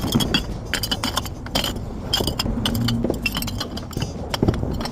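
Glass bottles of litter clinking and clanging against each other as they are gathered up, in a quick, irregular run of sharp clinks.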